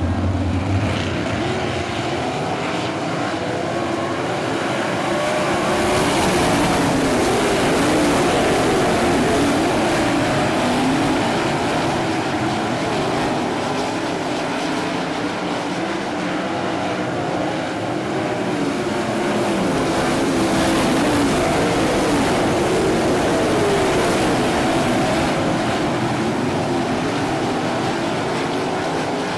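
A field of winged dirt-track sprint cars racing, their V8 engines at full throttle and rising and falling in pitch as they lap the oval. The sound swells louder twice as the pack comes past.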